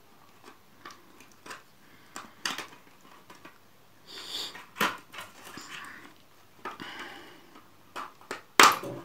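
Plastic snap locks of a laptop battery casing clicking and snapping as a flat-blade screwdriver pries the case halves apart, with short scrapes of plastic between the clicks. The clicks come irregularly, the loudest snap near the end.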